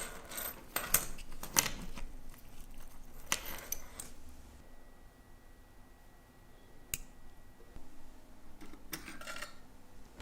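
Small metal clicks and clinks of watchmaking tools against the parts of a vintage Rolex Oyster Perpetual Date during a restoration, in short clusters with quiet gaps between them: several in the first two seconds, a few around three and a half seconds, a single sharp click near seven seconds and another cluster around nine seconds.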